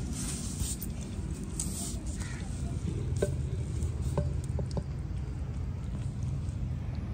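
Wooden ladle scraping and scooping food out of a clay cooking pot, heard as a few light clicks and scrapes over a low steady rumble.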